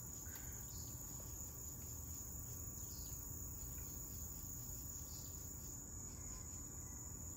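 Insects, likely crickets, trilling as one continuous high-pitched note, over a faint low outdoor rumble.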